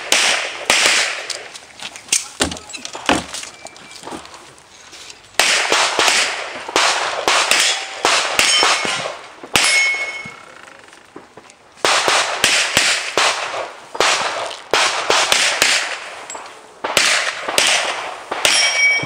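Handgun shots fired in quick strings with short pauses between, as a shooter runs a practical pistol stage, and steel plate targets ringing with a clang when hit.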